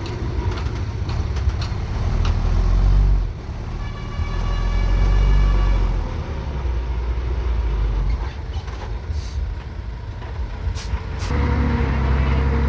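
Heavy diesel engines of dump trucks and earthmoving machines running with a steady low note. About four seconds in, a pitched tone with several overtones sounds for about two seconds, and short hisses come twice near the end as one engine grows louder.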